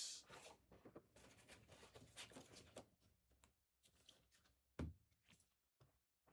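Near silence: faint scattered ticks of handling noise, with one short dull thump about five seconds in.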